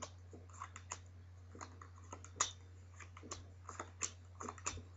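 Playing cards being dealt one at a time onto a table: a string of light, irregular clicks and slaps.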